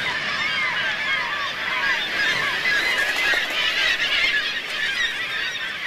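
Seabird colony: a dense chorus of many birds calling at once, short rising and falling calls overlapping without a break.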